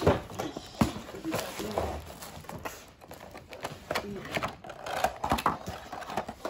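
Irregular clicks, knocks and rustling of a Lego set's box and packaging being handled, with a sharp knock at the start and another about a second in.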